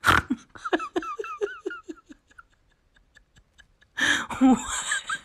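A person giggling in a quick run of short, rising-and-falling 'ha' sounds, then breaking into louder laughter about four seconds in. It opens with a sharp loud burst, and a dog's claws click faintly and evenly on the hard floor.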